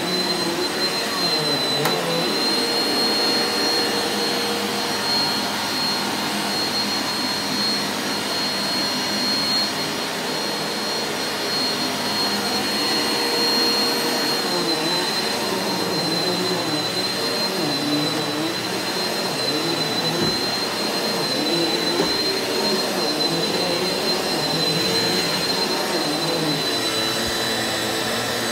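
Eureka NEU180B Power Speed bagless upright vacuum cleaner running steadily on carpet, with a constant high whine over its motor and suction noise. Its lower tones waver up and down as it is pushed back and forth across the pile.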